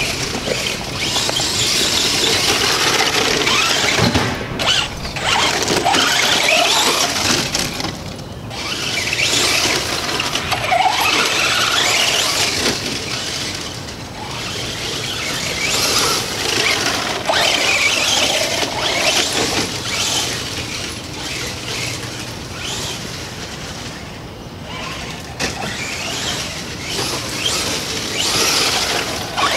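Traxxas Slash 4x4 RC truck's electric motor and geartrain whining at speed, surging and easing off again and again with the throttle.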